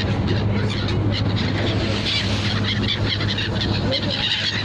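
A ferry's engine running with a steady low hum, while seagulls call over it, loudest about two seconds in and again near the end.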